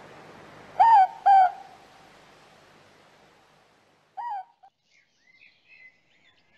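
Morepork (ruru) owl calling at night: a two-note hoot, the notes about half a second apart, near the start, then a single hoot about three seconds later.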